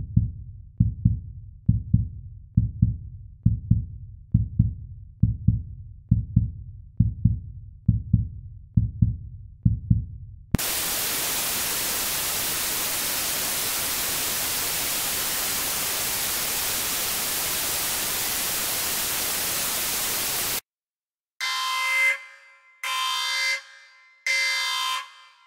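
A deep, evenly repeating thump, about three beats every two seconds, cuts off about ten seconds in and gives way to loud, steady static hiss. After about ten seconds the hiss stops, and after a short gap a loud electronic alarm tone sounds in pulses about once a second.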